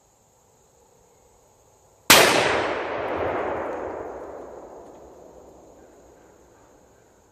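A single shot from a Smith & Wesson .500 Magnum Performance Center revolver firing a 275-grain all-copper Barnes XPB load, about two seconds in, followed by a long rolling echo that fades over about five seconds.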